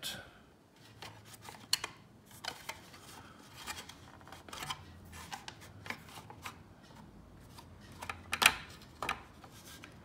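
Plastic arch pieces of a Faller viaduct model kit being pressed and adjusted by hand in clamps: scattered light clicks and taps of plastic, a sharper click about two seconds in and louder ones near the end.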